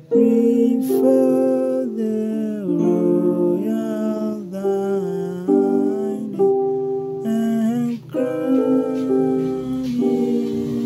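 Yamaha portable keyboard on its grand piano voice, played with one hand: slow sustained chords in a hymn progression, changing about once a second, with a brief break just before eight seconds in.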